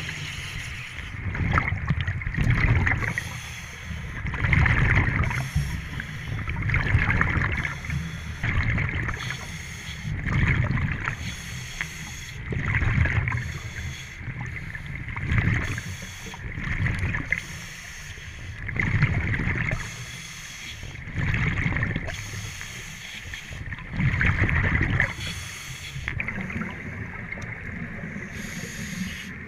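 Scuba breathing underwater through a regulator: a rhythmic rush and gurgle of breaths and bubbles, swelling and fading about every two to three seconds.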